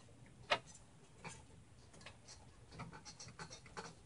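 Scattered light clicks and taps of hands handling cables and plastic parts inside a computer case. One sharper click comes about half a second in, and a run of small clicks follows near the end.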